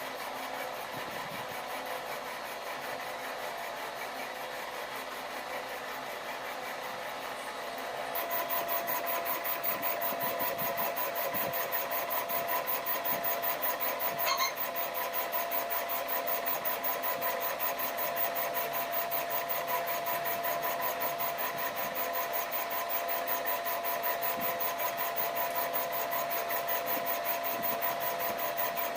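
A metalworking machine tool runs with a steady hum and a fast, even rasping rhythm. It gets louder about eight seconds in, and there is a brief high squeal partway through.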